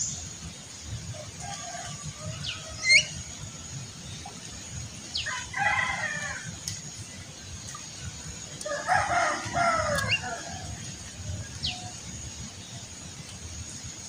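A rooster crowing twice, about five and nine seconds in, each crow lasting a second or so. Short, sharp bird chirps come between the crows, the loudest about three seconds in, over a thin steady high-pitched tone.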